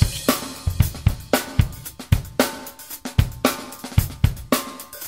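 Drum-kit beat of kick, snare, hi-hat and cymbals, with evenly spaced hits about four times a second.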